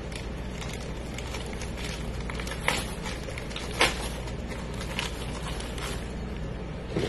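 Plastic zip-seal bag crinkling and rustling as it is handled, with a few sharp crackles, the loudest about four seconds in, over a steady low hum.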